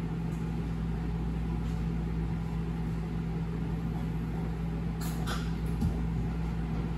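Café room tone: a steady low hum, with a few faint clicks about five to six seconds in.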